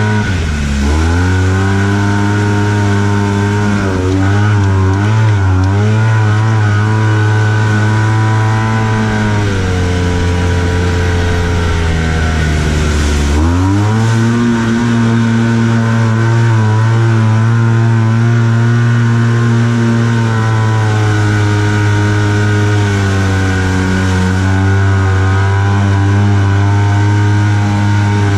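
Arctic Cat Wildcat Trail 700 side-by-side's twin-cylinder engine pulling under throttle, heard from the cab. The engine note dips and climbs again just after the start and again near the middle, where the machine ploughs through a puddle and water sprays over it, then holds steady and high.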